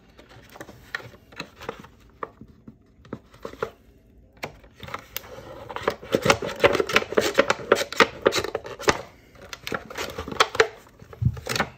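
Crinkling, scraping and clicking of a cut-up for-sale-sign sheet wrapped around a transmission clutch piston, as hands press and work the piston down into its drum; the piston is not yet seated. A dense run of crackles, busiest in the middle.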